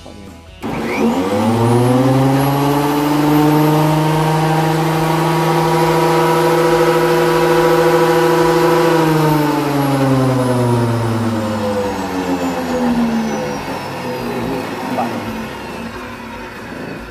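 Fujiyama portable thickness planer run empty, with no wood fed: the motor and cutterhead are switched on and whine up to speed within about a second, run steadily, and then, about nine seconds in, are switched off and wind down with a falling whine that fades over about five seconds.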